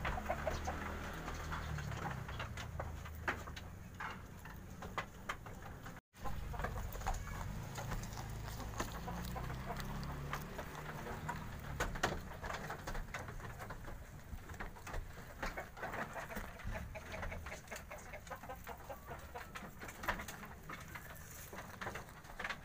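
Goats feeding on leafy fodder at a bamboo pen, with scattered clicks and rustles of chewing and pulling at the leaves and bird calls in the background. The sound cuts out briefly about six seconds in.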